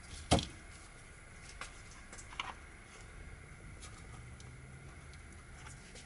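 A sharp click about a third of a second in, then a few fainter clicks and taps. These come from cast resin puzzle pieces and a rubber mould being handled on a workbench.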